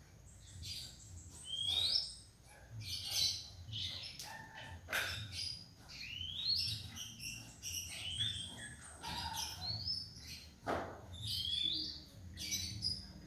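Juvenile oriental magpie-robin practising its song: an uneven string of short chirps and rising whistled notes with gaps between them, the halting subsong of a young bird still learning to sing.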